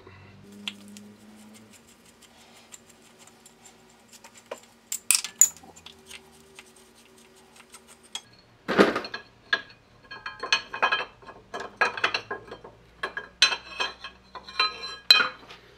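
Metal clinks and clanks as the cone-head guards and their screws are handled on a Hendey lathe headstock: a few faint clicks, one sharp clink about five seconds in, then a busy run of clanks and rattles from about nine seconds on as a guard is worked loose and lifted off.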